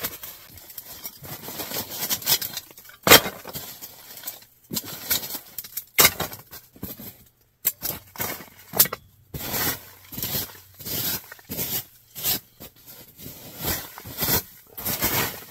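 Kindling being chopped: a run of sharp, irregular knocks and cracks, the loudest crack about three seconds in, then quicker strikes, about two a second, through the second half.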